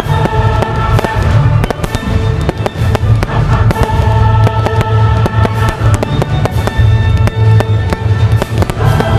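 Fireworks display: aerial shells bursting in quick succession, many sharp reports one after another, over loud music with a heavy bass played through the show's sound system.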